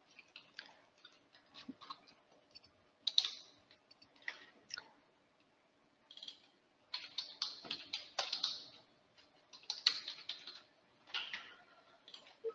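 Faint computer keyboard typing: irregular bursts of keystrokes as data is entered into a form.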